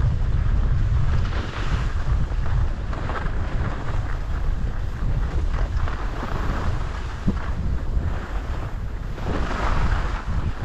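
Wind buffeting the microphone: a heavy, steady low rumble with a rushing noise above it.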